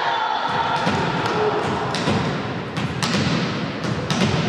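Scattered thuds and sharp knocks in a large wooden-floored sports hall, from a volleyball and players' feet, over a steady haze of crowd and player noise.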